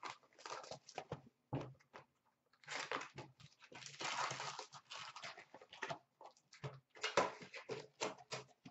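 Hockey card box packaging and pack wrappers being handled and torn open: irregular crinkling, rustling and tearing, with cards clicking and sliding in the hands near the end.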